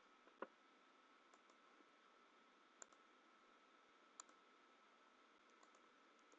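Near silence with a few faint computer mouse clicks, three of them clearer: about half a second in, near three seconds and about four seconds in. A faint steady high tone runs underneath.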